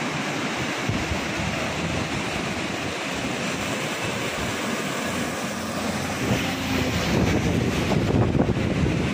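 Steady rushing of a monsoon-flooded river in spate, with wind buffeting the microphone. In the last few seconds it grows louder as a vehicle passes close by on the wet bridge road.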